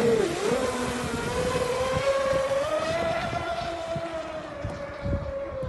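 RC Exocet 150 catamaran speedboat running flat out, its 12S brushless electric motor giving a high whine over the hiss of spray. The whine dips briefly, climbs in pitch over the first few seconds, then sags a little as the sound fades with the boat speeding away.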